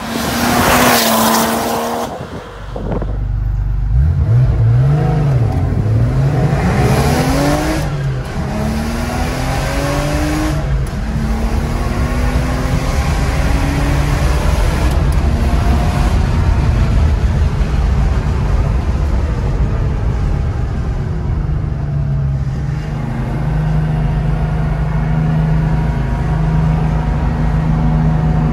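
Porsche 964 Carrera 4 with a 3.3-litre turbocharged flat-six passing by at speed for the first two seconds. Then, heard from inside the cabin, it accelerates through the gears, the revs climbing and dropping at each upshift, and settles into a steady cruising drone.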